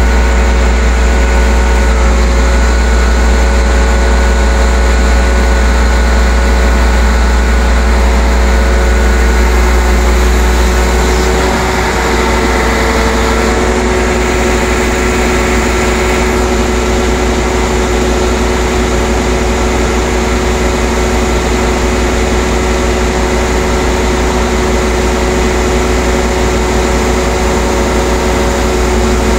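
Heavy diesel engine running steadily with a low rumble and steady tones above it, as a crane lifts a streetcar body. About twelve seconds in the note changes and the low rumble eases.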